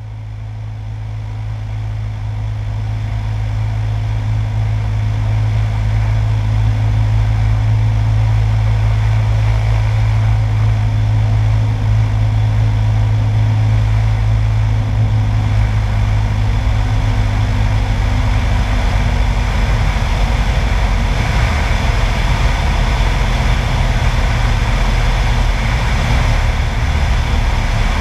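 A single-engine light airplane's piston engine and propeller droning steadily, mixed with wind rush over the airframe, fading in over the first few seconds. About two-thirds of the way through, the steady low hum gives way to a rougher, noisier rush while the plane descends on approach to land.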